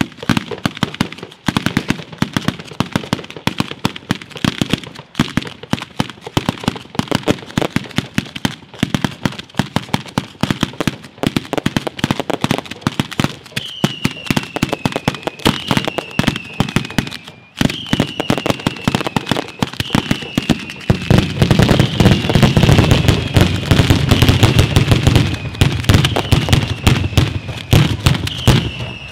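Italian 'batteria' ground fireworks display: a dense, rapid string of firecracker cracks and bangs. About halfway through, falling whistles begin, repeating about every two seconds, and in the last third the firing grows louder and denser, with deeper booms.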